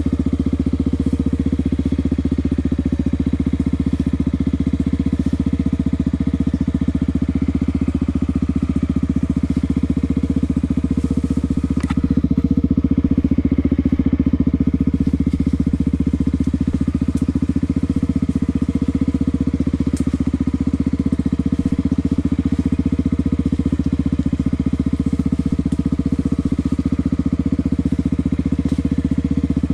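Honda XR250 Tornado's single-cylinder four-stroke engine running at a low, steady speed while the motorcycle is ridden along a dirt trail. It gets a little louder for a few seconds about twelve seconds in, and there are a couple of brief sharp clicks.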